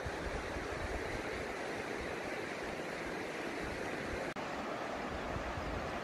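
River water rushing over shallow stony rapids: a steady rushing noise, with wind buffeting the microphone as a low rumble. There is a brief dropout with a faint click about four seconds in.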